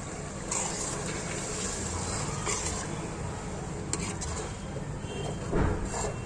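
Steel spoon stirring a wet green masala paste into frying chicken in a pot, with several short scrapes against the pot over a steady sizzle.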